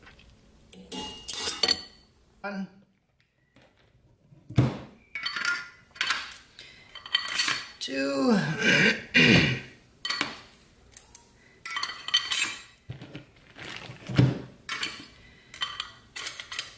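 Steel clutch plates and friction discs of a TH400 transmission's direct clutch drum clinking and clattering as they are handled and stacked into the drum: a run of sharp metal clinks with short pauses, and a quiet gap about three seconds in.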